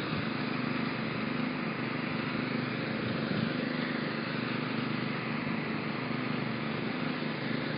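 Steady vehicle engine and traffic noise, a constant low hum under an even wash of noise with no breaks.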